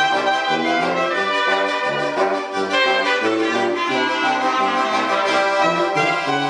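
Music played on brass instruments, a melody of held notes changing every half second or so.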